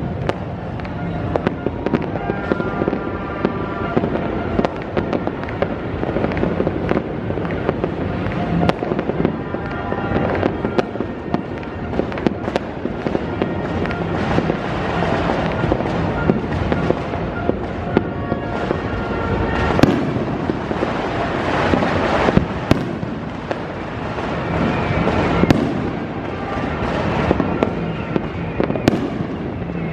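Dense, continuous New Year's Eve fireworks and firecrackers: many sharp cracks and bangs overlapping, with music playing underneath.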